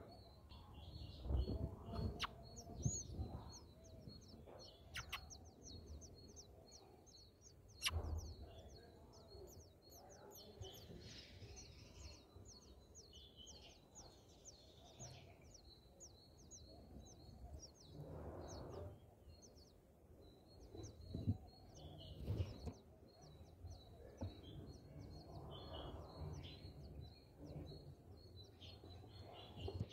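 Small bird chirping faintly in a rapid run of short high chirps, several a second, with occasional soft rustling and a sharp knock about eight seconds in.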